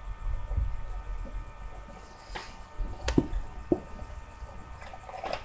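Room tone with a faint, steady high-pitched electrical whine, broken by a few short knocks and handling noises about halfway through.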